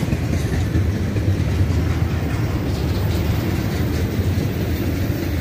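Train running by with a steady, loud low rumble.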